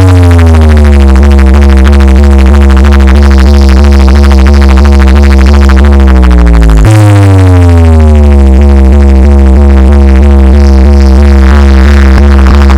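Electronic dance remix blasting at full volume through a DJ sound-box system. It has heavy, rapidly pulsing bass under falling synth sweeps, and the sweep pattern starts over about seven seconds in.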